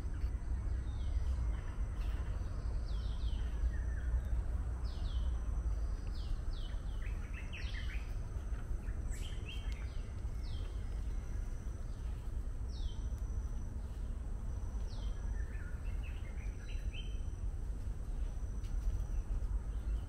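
Forest ambience: small birds giving short, downward-sweeping chirps every second or two over a steady low rumble, with a thin, steady high-pitched whine.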